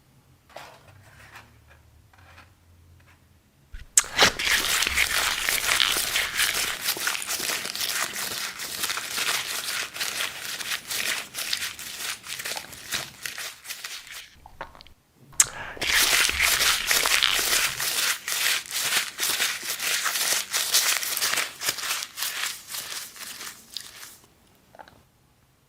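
Dense crinkling and crumpling noise, as of something being crumpled or torn by hand. It comes in two long stretches about ten seconds each, with a brief pause between them, after a few quieter seconds of faint clicks.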